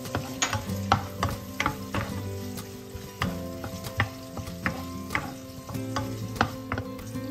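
Diced bacon and garlic cloves sizzling gently in olive oil in a nonstick frying pan over low heat, with frequent sharp ticks and taps as a wooden spoon stirs them.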